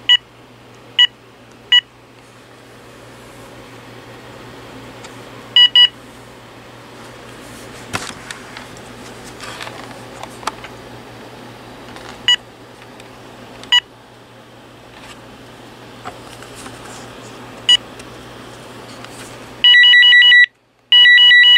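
GE GE26998GE1-D 900 MHz cordless phone handset giving short single key beeps, scattered a second or several apart, as its buttons are pressed through the menu. Near the end the handset starts playing its ringer tone, a fast trilling in repeated bursts, as ringer tone 2 is previewed.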